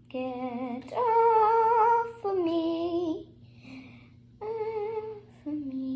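A girl's voice singing a wordless tune to herself in long held notes, about five of them with short pauses between.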